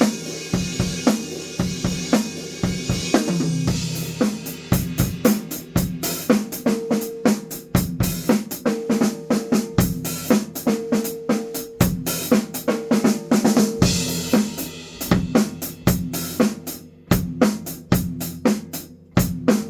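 Yamaha five-piece drum kit played solo: drums and cymbals struck in quick succession, with cymbals washing in the first few seconds and a dense run of rapid hits after that.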